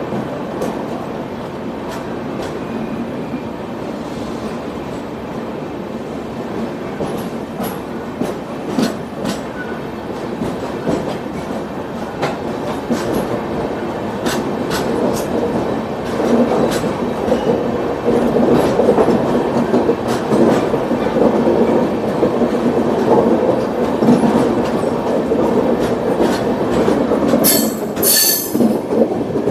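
Express train running, heard from on board: a steady rumble of wheels on the track with frequent clicks over the rail joints, growing louder about halfway through. A high-pitched wheel squeal starts near the end.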